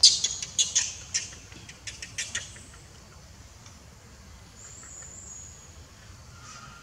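Young macaques giving a quick run of short, high-pitched squeaks, loudest at the start and dying away after about two and a half seconds.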